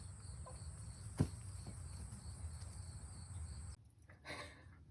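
Crickets chirping steadily over a low outdoor rumble, with a single sharp knock a little over a second in. The sound cuts off abruptly near the end.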